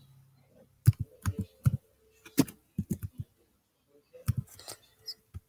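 Computer keyboard keys being typed slowly, about a dozen separate key clicks at uneven spacing, with a pause of about a second after the middle.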